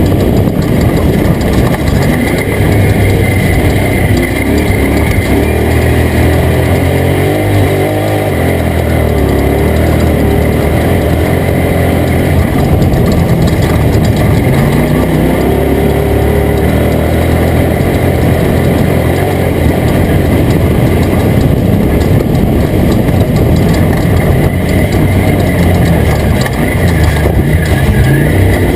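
Toyota Tacoma race truck engine running hard while racing, loud and continuous, its revs rising and falling with throttle changes.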